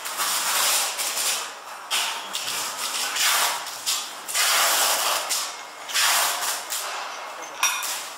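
Cotton-gloved hands and a cloth rubbing against the steel die holder and punch of a single-punch tablet press: repeated rubbing strokes, about one a second, with a sharp metal click near the end.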